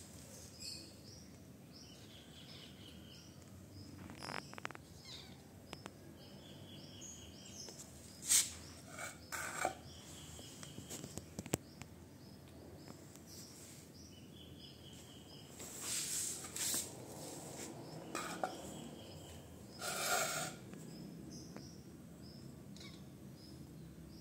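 Quiet background ambience with birds chirping in short runs of quick, high-pitched notes. A few brief bursts of noise stand out above it.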